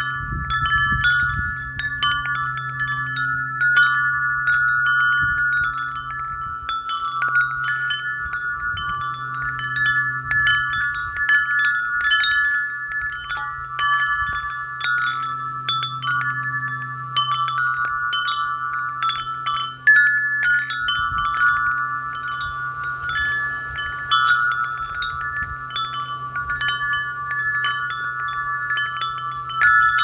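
Metal-tube wind chime ringing continuously as its clapper strikes the tubes again and again, several overlapping bell-like tones ringing on between strikes.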